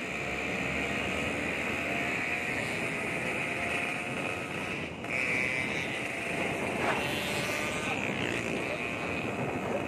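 Two-stroke motorcycle exhaust with a raspy, crisp note, typical of a Yamaha RX-King with a Medan-style pipe, running steadily while riding, with wind noise. The sound drops briefly about five seconds in, then comes back slightly louder.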